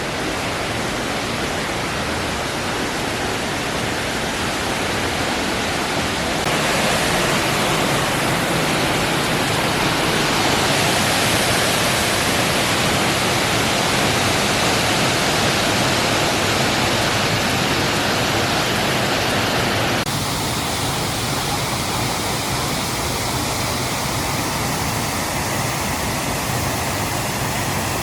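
Waterfall: a loud, steady rush of falling water. It grows louder about six seconds in and drops back a little about twenty seconds in.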